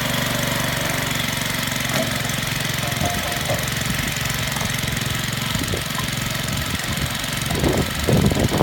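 Small engine running steadily at an even pace, then a run of loud knocks and clatter near the end.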